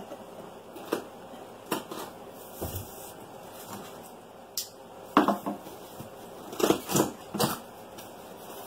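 Cardboard box and packaging being handled and opened, a vacuum cleaner unboxing: irregular knocks and taps with light rustling, busiest in the second half.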